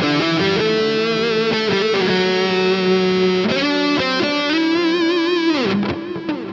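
Distorted electric guitar lead, a Gibson Les Paul through a tube amp with an overdrive pedal and the Earthquaker Devices Dispatch Master adding delay and reverb. It plays held notes with vibrato and ends in a falling slide near the end. The notes then fade out in echoing repeats and reverb.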